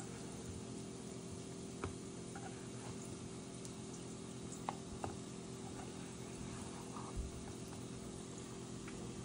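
Steady low hum of a quiet kitchen, with a few faint clicks and taps.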